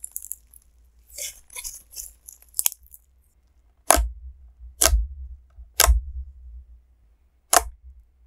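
Pink-tinted clear slime being squeezed and folded by hand, with soft crackling and squelching. Then fingertips jab into it, giving four sharp pops about a second apart.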